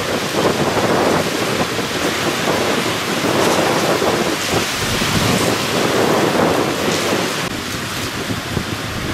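Heavy downpour of rain pouring onto a paved street and vehicles: a steady, dense hiss that eases slightly near the end.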